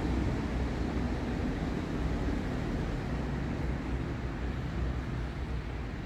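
Steady low rumble of outdoor background noise with no distinct events.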